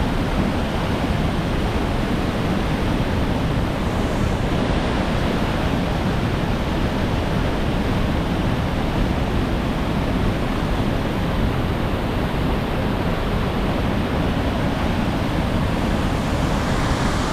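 Steady rush of water with wind blowing across the microphone.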